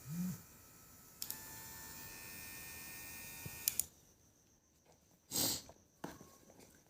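Small electric motor of a handheld face massage brush buzzing steadily for about two and a half seconds, switched on and off with a click. A short loud handling noise follows near the end.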